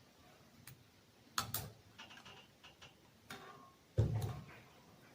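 Scattered light metallic clicks and taps as a piston ring is spread with a piston ring expander tool and worked onto the piston, with a louder, duller knock about four seconds in.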